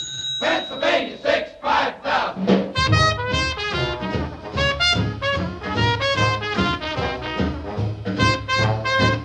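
Background music: brass-led swing with a steady beat. It starts about three seconds in, after a short ringing tone and a few noisy beats.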